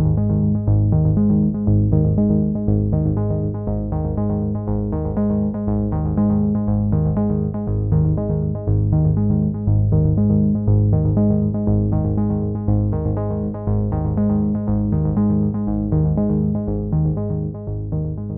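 Synthesizer-led electronic background music with a steady, repeating beat.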